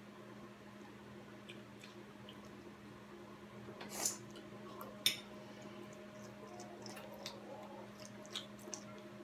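Training chopsticks clinking and scraping on a ceramic plate as noodles are picked up: two sharper clinks about four and five seconds in and a few light taps near the end, over a steady low hum.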